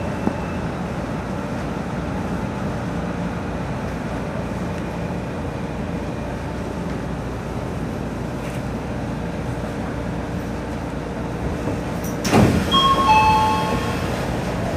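Odakyu 3000 series electric train running at speed, with a steady rumble of wheels and motors. About twelve seconds in there is a short louder rush, then ringing tones that drop slightly in pitch for about a second.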